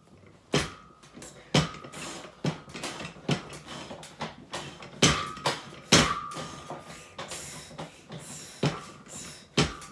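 Exercise equipment clanking through a set of leg reps: sharp metal knocks at uneven intervals of about a second, several followed by a brief ringing tone.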